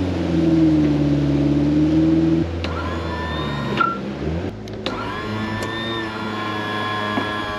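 Boat's outboard motor running under way, carrying the boat upriver. About two and a half seconds in, the engine note drops and eases into a lower, steadier run with a higher whine over it, broken off briefly about halfway through.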